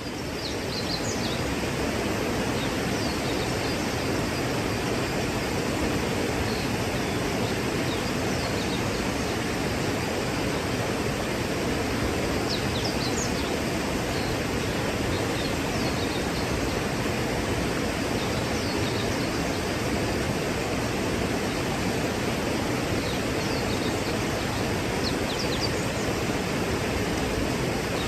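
Steady rush of a tall waterfall, about 110 feet of falling water, with faint short bird chirps now and then.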